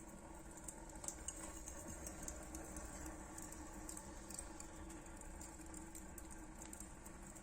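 Wood fire burning in a stove-fireplace's firebox: faint, irregular sharp crackles over a steady low rumble.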